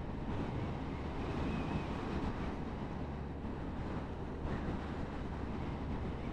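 Steady rush of wind over a motorcycle rider's helmet microphone at road speed, with a low engine drone beneath.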